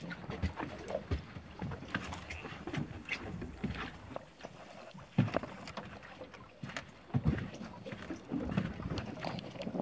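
Small waves slapping and knocking irregularly against the hull of a drifting fishing boat, with water splashing along the side.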